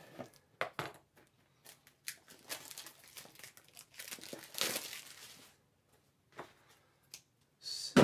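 A small cardboard product box being opened by hand. Scissors cut the seal, then packaging crinkles and rustles, with scattered clicks and taps.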